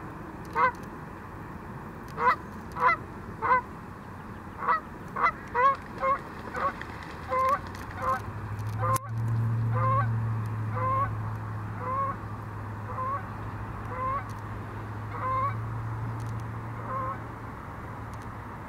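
Canada goose honking over and over: short calls with a rising turn, a few at first and then about two a second as it takes off and flies. About halfway a sharp click is followed by a low steady hum beneath the calls.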